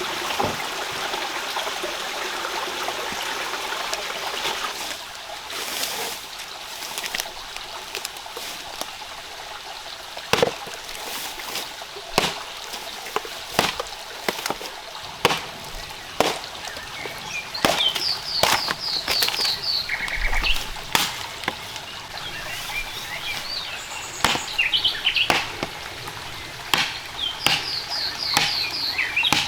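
Running water for the first five seconds or so, then sharp knocks at irregular intervals, with a bird singing a quick run of high notes twice in the second half.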